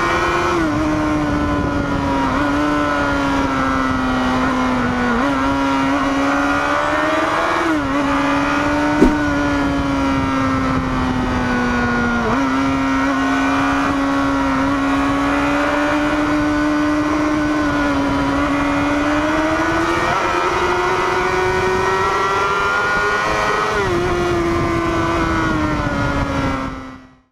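Sport motorcycle engine running at speed, heard onboard with wind rush. Its pitch climbs slowly and drops back several times as the throttle changes. There is a sharp click about nine seconds in, and the sound fades out near the end.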